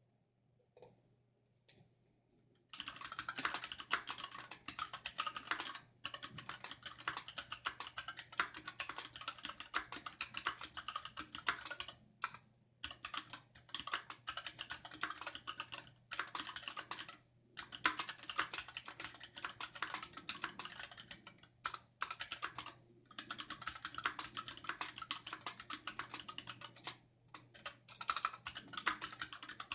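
Fast typing on a Varmilo VA68M mechanical keyboard with linear Gateron Red switches, dye-sub PBT keycaps and an aluminium case: a few single keystrokes, then a rapid run of key clacks broken by several brief pauses.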